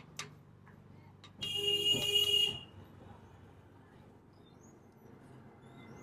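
A power nut-runner (impact wrench) spins up with a steady whine for about a second, starting about a second and a half in, tightening a nut on the engine. A sharp click comes just before it, near the start.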